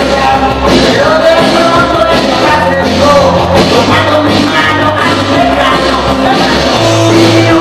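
Loud dance music with a sung vocal over a sustained bass line, played through a sonidero's sound system.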